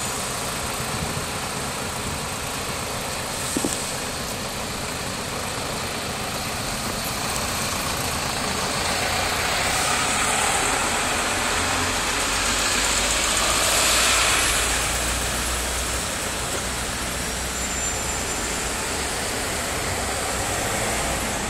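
Steady road traffic and engine noise. A passing vehicle swells and fades about two-thirds of the way through, and there is one short click early in the stretch.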